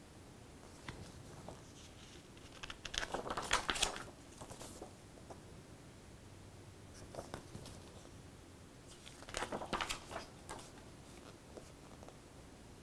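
Paper pages of an instruction manual being turned twice, each turn a short crisp rustle, about six seconds apart, with a few light handling ticks between.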